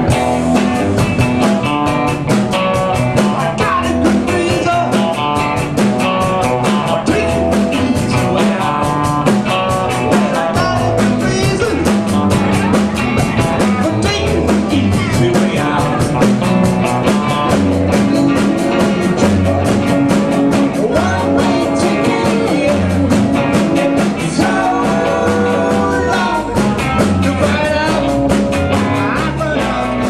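Live rock band playing with electric guitars and drums keeping a steady beat, a woman singing over it.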